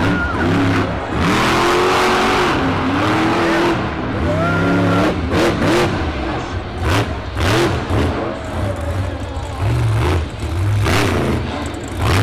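Monster truck engine revving hard, its pitch repeatedly rising and falling over a steady low drone, with several sharp bangs in the second half.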